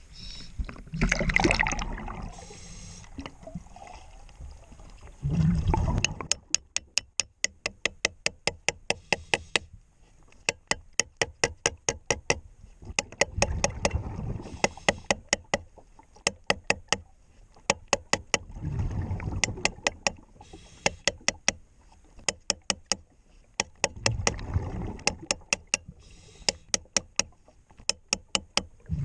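Hammer blows on a stuck feathering propeller, heard underwater, in quick runs of about four sharp strikes a second. The runs alternate with the gurgle of a diver's regulator exhaust bubbles.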